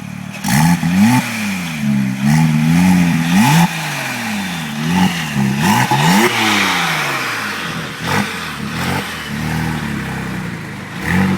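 Porsche 997 Turbo's 3.6-litre twin-turbo flat-six through a Europipe aftermarket exhaust, revved over and over, the pitch climbing and falling with each blip, then dropping back to idle near the end.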